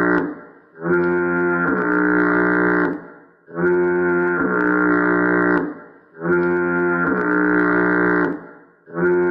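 Foghorn sound effect honking over and over: long, deep horn blasts of about two seconds each, repeating about every two and a half seconds with short gaps between. Each blast steps slightly down in pitch about a second in.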